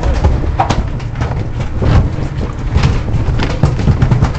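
Irregular knocks and thumps of a freshly caught mahi-mahi thrashing inside a closed fiberglass fish box, over a steady low rumble of wind and boat noise.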